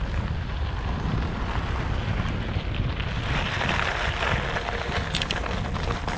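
Wind buffeting the microphone while riding a bike, a steady low rumble. About halfway through a rushing hiss swells and fades, and a few brief clicks come near the end.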